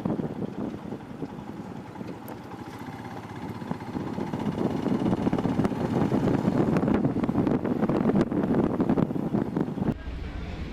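Motorcycle riding on the road: engine noise mixed with wind buffeting the microphone, growing louder partway through. The sound changes abruptly near the end to a lower rumble.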